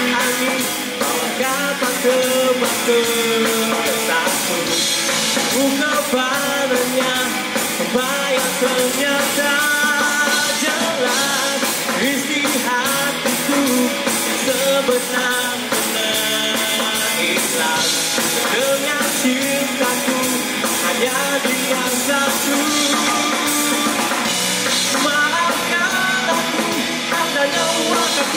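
Live rock band playing: a male voice singing over electric guitar and a drum kit keeping a steady beat.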